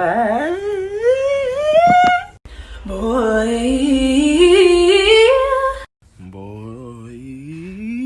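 A voice humming or singing wordless long upward slides in pitch, three in a row, each with a wavering pitch; the third is lower than the first two.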